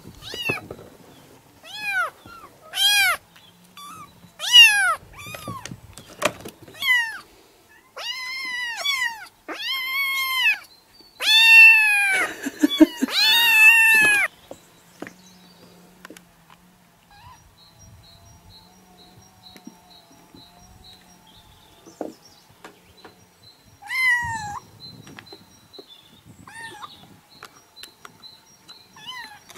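Kittens meowing: a run of short, high, rising-and-falling cries about one a second, then several longer, louder cries in a row. After a quiet spell come two more cries near the end.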